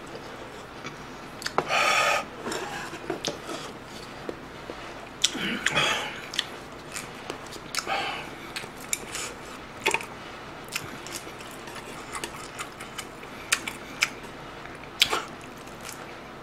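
Close-miked eating sounds: chewing and slurping, with many sharp clicks of chopsticks and a spoon against the dishes. A few louder short bursts stand out, about two seconds in and again around six and eight seconds.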